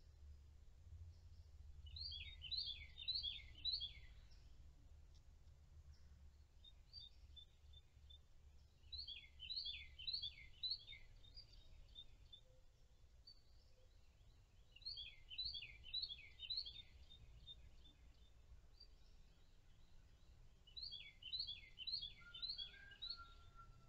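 A songbird singing faintly: four phrases, each a quick run of five or six clear downslurred whistles, repeated about every six seconds, over a steady low hum.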